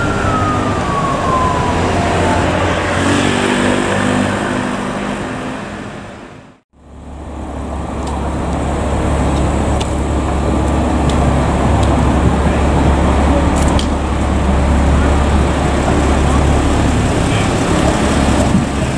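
A siren winding down in one smooth falling tone over road-traffic and vehicle noise. After a brief fade to silence about seven seconds in, the steady low drone of emergency vehicles idling at a fire scene.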